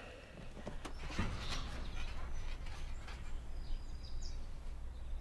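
Outdoor ambience: a steady low rumble of wind on the microphone, with a few sharp knocks and rustles, and a bird chirping briefly about four seconds in.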